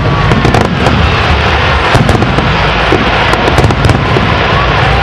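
Aerial fireworks display: a dense, unbroken run of shell bursts, deep booms rumbling together under many sharp pops and crackles from the glittering stars, loud throughout.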